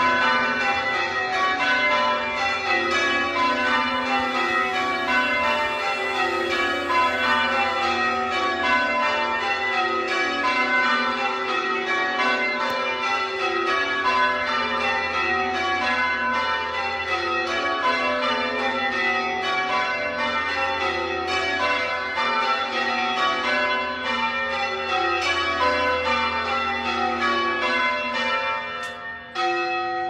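A ring of church tower bells being change-rung: the bells strike one after another in continuous rows, each row stepping down in pitch from the highest bell to the lowest.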